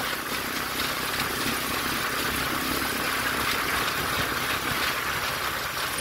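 A motorcycle-and-sidecar tricycle's engine running steadily on the move, with steady wind and road noise over it.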